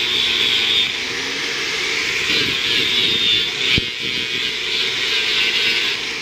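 Electric angle grinder running at speed with its abrasive disc grinding into a block of coconut-palm wood, a steady high whine mixed with the rasp of the disc on the wood. A single sharp click comes a little under four seconds in.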